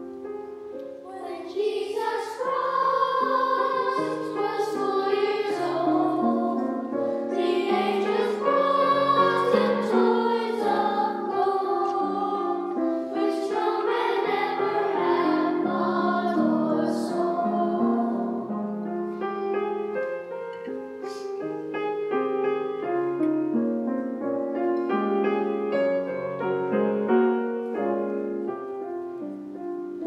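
Children's choir singing with grand piano accompaniment. The piano plays alone briefly before the voices enter about a second in.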